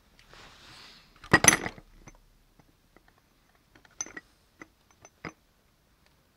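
A few sharp metallic clinks and knocks, like hard objects being handled, with one louder clatter about a second and a half in.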